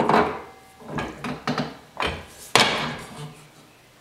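Manual finger brake clanking as its bending leaf is worked through small incremental bends on a sheet-metal patch, with the sheet rattling. About five sharp metal clanks with short ringing, the loudest at the start and about two and a half seconds in.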